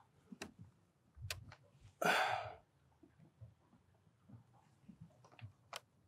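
Quiet scattered clicks and knocks from tightening a surveying tripod's leg clamp, with a short hiss about two seconds in.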